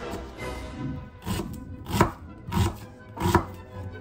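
Kitchen knife chopping an onion on a cutting board: after a short pause, four knife strokes come down through the onion onto the board, roughly one every two-thirds of a second.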